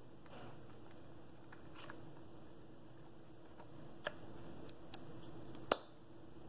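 A few light, irregular mechanical clicks from handling a Fujifilm X-H1 camera body, starting about four seconds in, the sharpest just before the end. A faint steady low hum lies underneath.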